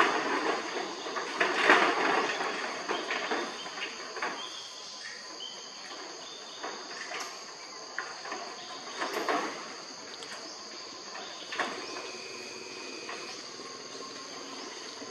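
Macaques scuffling on a corrugated metal roof: noisy clattering and scrabbling, loudest in the first couple of seconds and again around nine seconds in. Underneath, a steady high insect drone from the surrounding forest, with a few short, thin high calls.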